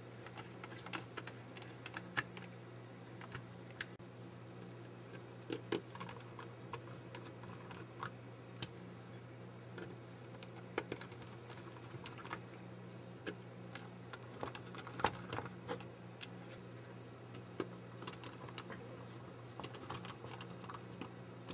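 Irregular small clicks and ticks of a precision screwdriver turning tiny screws into a camera's sheet-metal back plate, over a steady low hum.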